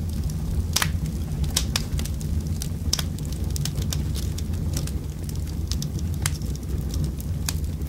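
Wood fire burning in a fireplace, crackling with sharp, irregular pops over a steady low rumble.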